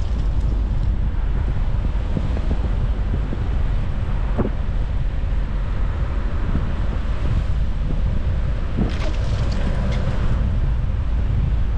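Car driving on an unplowed, snow-packed street, heard from inside the cabin: a steady low rumble of tyres and road noise. A few short crackles stand out, one about four seconds in and a small cluster around nine seconds.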